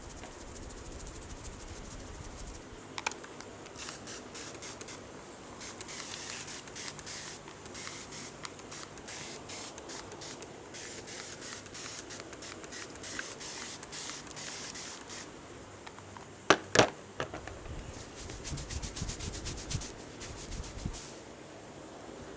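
Hands rubbing and scratching over a customer's hair and scalp during an Indian head massage, a dry rustling scrape. There is a sharp click about three seconds in, and two loud sharp snaps close together about seventeen seconds in.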